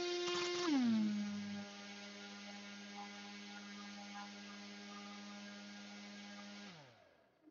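Brushless 2206 2150KV motor spinning a 6x4.5 two-blade prop on a thrust test stand, driven by a ZTW Spider Pro HV 20A ESC: a steady whine with many overtones drops in pitch about a second in as the throttle steps down from about 12,300 to 7,100 RPM. It holds there, then winds down and stops near the end.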